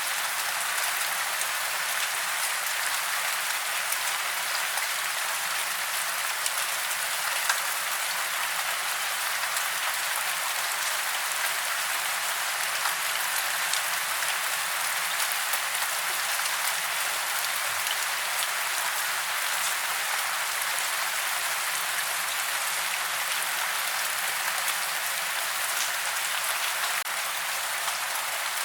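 Steady rain falling: a dense, even hiss with scattered small drop ticks, mostly high-pitched with little low rumble.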